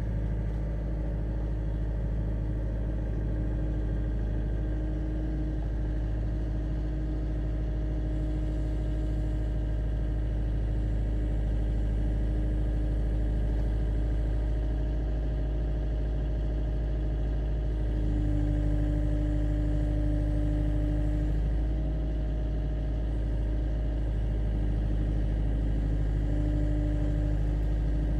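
A machine engine or motor running steadily: a low rumble with a constant hum, which brightens a little about two-thirds of the way through.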